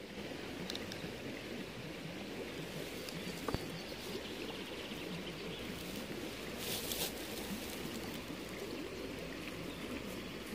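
Steady rushing outdoor ambient noise, with a faint click about three and a half seconds in and a brief hiss around seven seconds.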